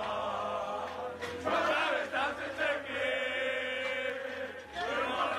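A group of men chanting together in unison, a celebratory football-team chant with long held notes.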